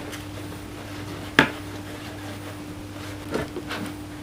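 A whisk stirring flour into a wet dough mixture in a plastic bowl, with one sharp knock against the bowl about a third of the way in and a few softer knocks near the end, over a steady low hum.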